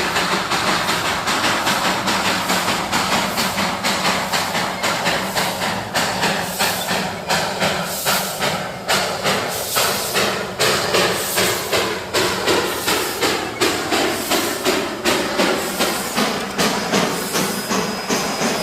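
Darjeeling Himalayan Railway toy train running, with a regular beat of sharp knocks about one and a half times a second over a steady hiss.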